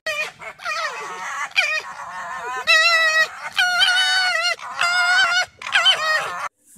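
Two red foxes squabbling, giving a string of high, wavering screams back to back, which stop about half a second before the end.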